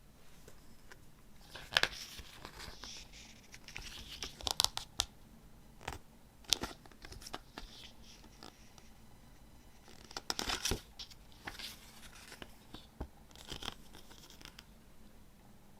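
Hands handling a CD album and its packaging: irregular bursts of rustling and sharp clicks, with quiet gaps between them.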